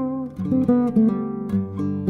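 Fretless nylon-string classical guitar played solo: a quick line of single plucked notes, several of them sliding slightly in pitch into or out of the note.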